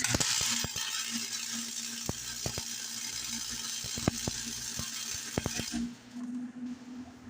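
Electric arc welding: a steady crackling hiss with scattered sharp pops for about six seconds, cutting off suddenly near the end, over a steady low hum.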